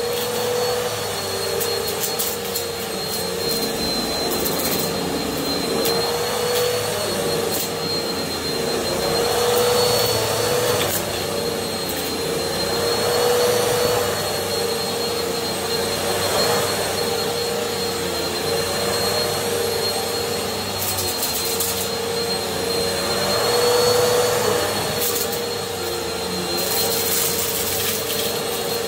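Bissell Swivel upright vacuum cleaner running continuously, with a steady motor whine and a higher thin tone above it. The rush of air swells and eases every few seconds as the vacuum is pushed back and forth over the carpet picking up fluff. A few brief crackles come in the second half.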